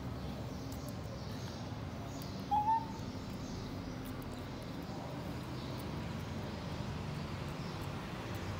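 A young macaque gives one short coo call, a brief clear note rising slightly in pitch, about two and a half seconds in, over a steady low background hum.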